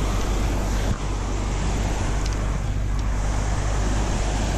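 Steady roar of whitewater pouring through a lake spillway, with a light knock about a second in.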